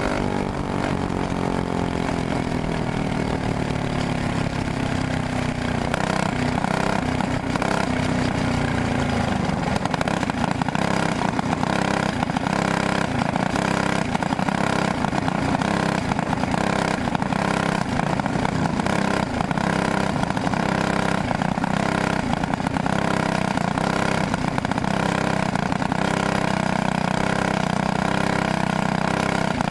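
Briggs & Stratton Animal single-cylinder four-stroke kart engine running on track, heard from onboard. Its pitch falls over the first few seconds as it comes off the throttle, then holds fairly steady.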